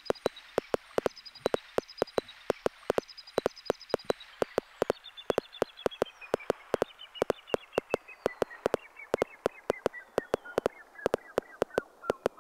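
Korg Electribe ESX-1 sampler playing a long birdsong sample over a steady rhythm of sharp clicks. The bird chirps slide steadily lower in pitch as the part's pitch is turned down.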